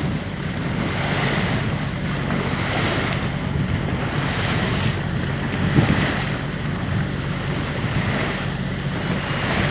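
Small boat's motor running steadily with a low, even hum, under wind buffeting the microphone and the wash of water.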